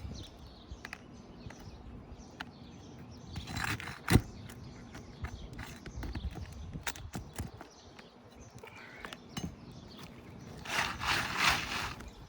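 Hand tools knocking and scraping on asphalt roof shingles while a shingle's nails are worked loose, with one sharp knock about four seconds in and a stretch of rough scraping near the end.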